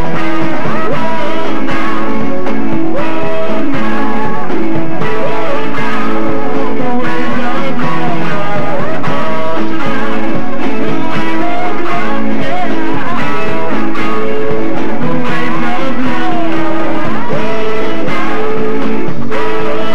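Loud live rock band playing: electric lead guitar and bass guitar over a drum kit.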